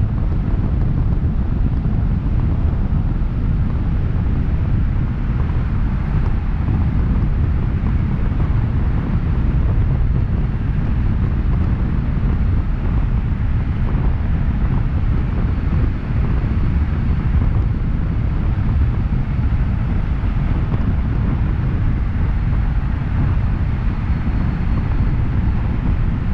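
Steady low rumble of wind buffeting the microphone of a camera mounted outside a moving car, mixed with the car's road and tyre noise at cruising speed.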